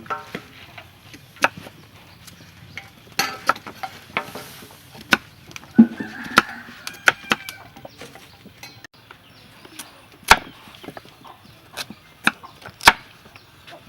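Knife chopping on a wooden cutting board: irregular sharp knocks, with a few much louder strikes spaced a couple of seconds apart in the second half.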